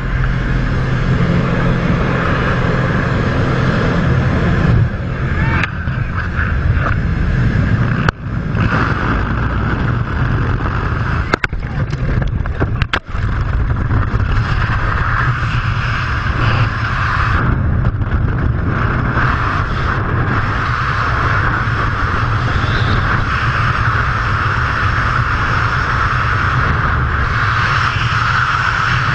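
Loud, steady rush of wind and small-plane engine noise buffeting a helmet or cabin camera's microphone, with brief drops in level three times in the first half.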